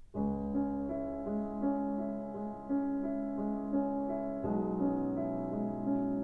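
Background piano music: a gentle repeating melody over held notes, the harmony shifting to a fuller chord about four and a half seconds in.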